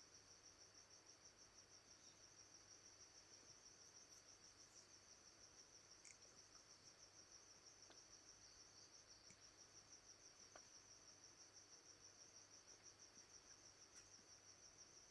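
Near silence: faint room tone with a steady, high-pitched pulsing trill.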